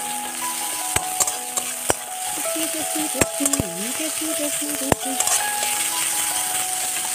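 Sliced onions, garlic, ginger and green chillies sizzling in hot mustard oil in a wok, stirred with a spatula that scrapes the pan and knocks against it a few times. They are being lightly fried until they turn brown.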